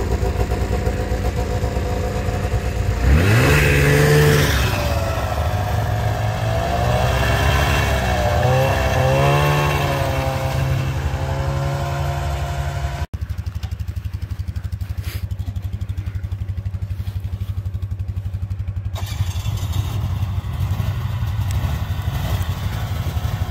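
A small off-road vehicle's engine revs up about three seconds in and pulls away, its pitch rising and falling as it speeds up and eases off. After an abrupt break about halfway through, an engine runs on at a steadier pitch.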